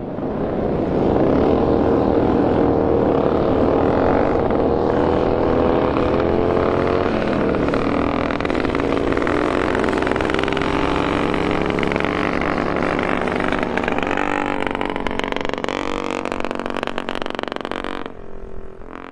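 Pre-war motorcycle engine running hard at high revs, its pitch wavering and dipping slightly. The sound stops abruptly near the end.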